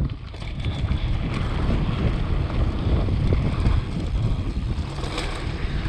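Wind rushing over the camera microphone and the rumble of knobby tyres on a loose gravel trail as a downhill mountain bike rides fast, with scattered clicks and rattles from stones and the bike.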